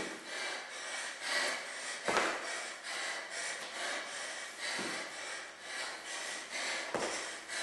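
Hard, rhythmic breathing of a woman exercising, heard close on a clip-on microphone, each breath a short puff. Three dull thumps come about two, five and seven seconds in.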